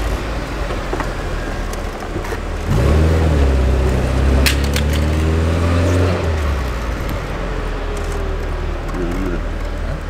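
Car engine heard from inside the cabin while driving through town, a steady low rumble; from about three seconds in it pulls harder and rises in pitch for about three seconds as the car accelerates, then eases off.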